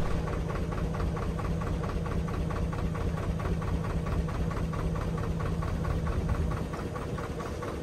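Narrowboat engine running slowly and steadily with an even, rapid beat, as the boat cruises at low speed past moored boats.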